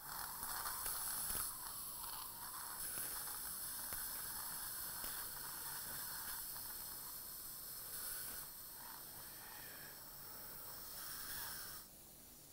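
Dental surgical suction tip hissing as it draws fluid at a bloody tooth extraction socket, wavering a little in strength; it starts abruptly and cuts off near the end.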